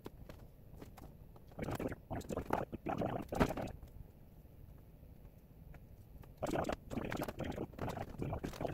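Wood glue being applied along the edge of a plywood panel: irregular clicks and rustling handling noises in two spells, one starting about a second and a half in and another near the end, quieter in between.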